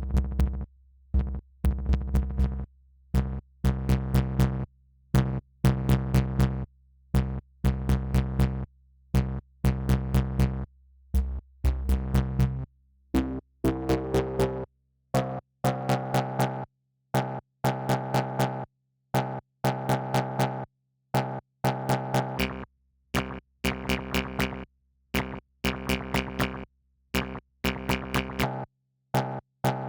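Electronic music from a VCV Rack software modular synthesizer patch: short, gated synth notes and sharp clicks in a repeating drum-machine rhythm. Deep bass notes carry the first half, then drop away about halfway through, leaving higher synth tones.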